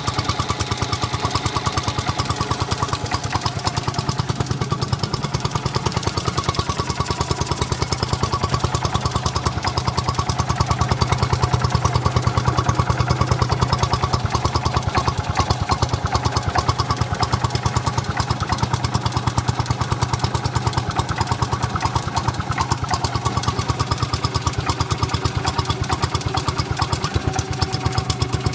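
Petter M pear-top single-cylinder stationary engine running steadily with a rapid, even beat, belt-driving a lighting-set generator; it gets slightly louder for a few seconds about ten seconds in.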